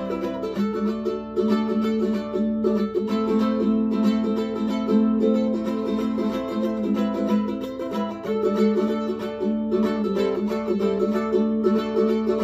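Luna High Tide 8-string ukulele played solo, its four doubled string courses sounding a flowing mix of chords and melody notes.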